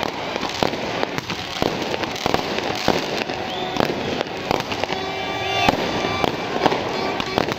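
Firecrackers going off in rapid, irregular bangs over a dense crackling hiss. A held, pitched sound joins in about five seconds in.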